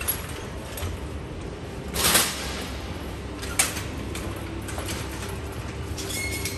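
Hard-shell suitcases rolling on their wheels across a smooth terminal floor, a steady low rumble. There is a short loud clatter about two seconds in and a sharp click about a second and a half later.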